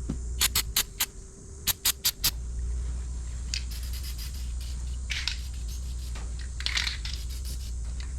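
Aerosol can of dye-penetrant developer being shaken, its mixing ball rattling in a quick run of sharp clicks, then a few short hissing bursts of spray.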